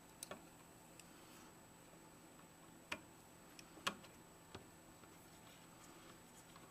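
Small screwdriver working a screw terminal on a circuit board inside a clear plastic case, fastening wires: a handful of faint, sharp clicks and taps, the loudest about three and four seconds in.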